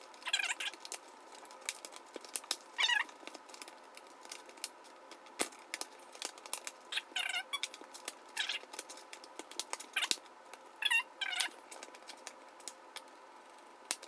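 Laptop's plastic bottom cover being pressed and snapped back into place, with many small clicks and taps and about six short, high squeaks.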